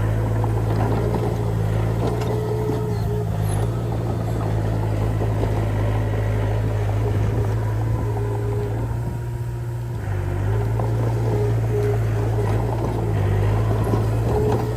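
Komatsu D20P bulldozer's diesel engine running steadily under load, with the rattling clatter of its steel tracks; the engine note dips briefly about ten seconds in.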